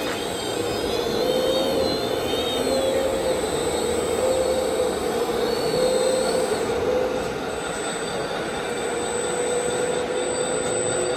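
A radio-controlled model machine's motor running steadily, its hum wavering slightly in pitch, over a constant mechanical noise.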